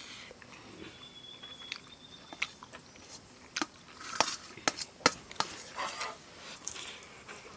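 People eating a meal: scattered sharp clicks and taps of a dish and hands at the plate, busiest in the second half, with chewing.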